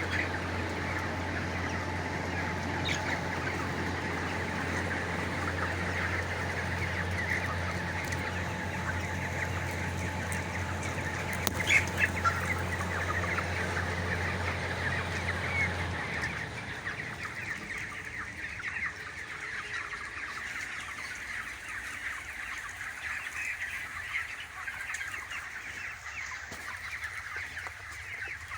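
A flock of chicks and broiler chickens peeping and clucking, a dense, continuous chatter of many birds. A steady low hum underneath stops suddenly about halfway through.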